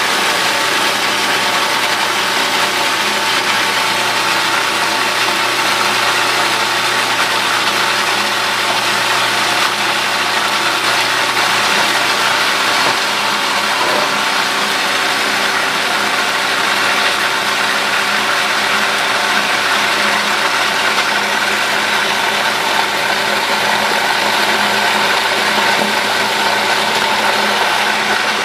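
Cuisinart food processor motor running steadily at full speed, a constant whirring hum, as it emulsifies eggs and oil into an aioli.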